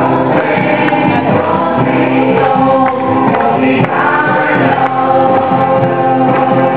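Several voices singing a devotional Krishna bhajan together, kirtan-style, over a steady held accompaniment.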